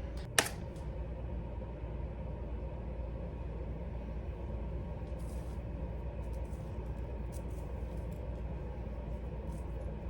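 Steady low room hum and rumble, with a sharp click about half a second in and a few faint ticks later on.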